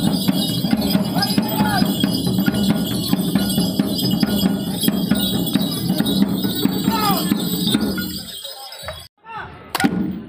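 Loud, fast percussion music with a dense, steady beat accompanying a Minahasan Kabasaran war dance. It stops about eight seconds in, and a few voices call out after it.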